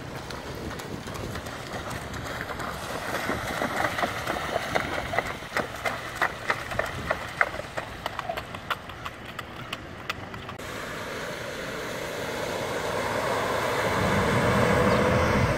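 A rhythmic clatter of sharp knocks, two or three a second, like hooves on a hard road, over a steady outdoor rush. After about ten seconds it gives way to a broad rushing noise that grows louder towards the end.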